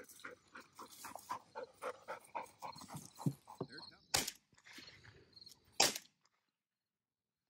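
A yellow Labrador retriever panting rapidly, then two shotgun shots about a second and a half apart.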